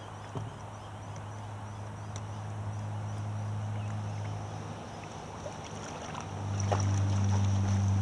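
Water sloshing and a few light knocks as a kayak cart is handled in shallow water against the hull. A steady low hum runs beneath and grows louder about six seconds in.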